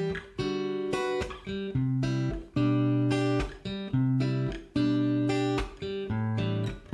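Background music: a plucked guitar picking single notes, about three a second, each ringing and fading.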